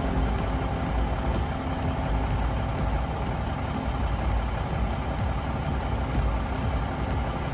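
Steady low rumble of a diesel train, with no distinct events.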